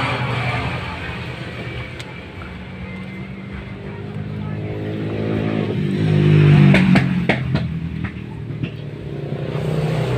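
A motor vehicle engine running nearby, growing louder to a peak about two-thirds of the way through and then dropping away. A few sharp clicks sound around the loudest point.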